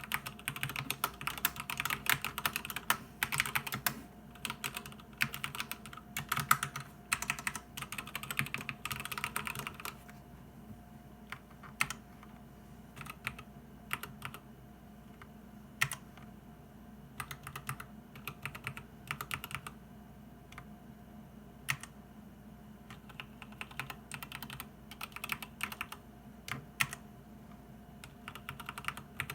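Typing on a SteelSeries Apex Pro keyboard with OmniPoint adjustable linear switches: a fast, dense run of keystrokes for about the first ten seconds, then slower, scattered key presses broken by short flurries.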